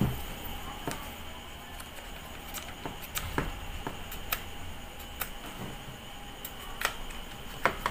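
Light, scattered clicks and taps of the yellow plastic motor housing of a disassembled Stanley STGS8100 angle grinder being handled, about eight in all, over a low steady background.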